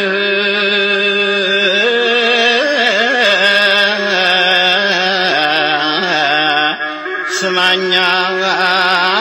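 A male singer holds a long melismatic 'ehe' in an Ethiopian Orthodox zelesegna mezmur (hymn), with a sustained note that breaks into wavering ornaments after about two seconds.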